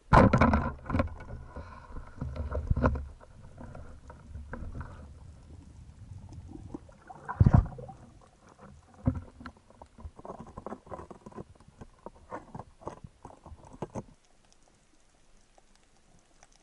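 Underwater noise of a breath-hold spearfisher on the move: water rushing and knocking against the camera housing, with a loud thump about seven and a half seconds in and a run of quick clicks and taps after it, cutting off suddenly near the end.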